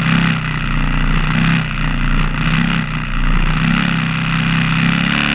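Vintage BMW motorcycle engine running as the bike rolls slowly, the engine note rising and falling every second or two, with a steady hiss over it.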